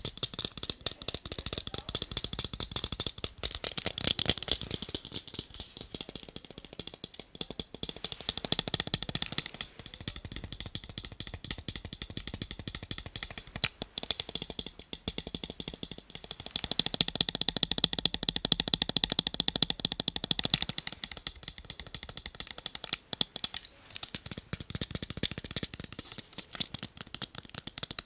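Fast, dense tapping on a pair of eyeglasses, a continuous run of rapid clicks. Its tone and loudness shift every few seconds between sharper, brighter stretches and duller ones.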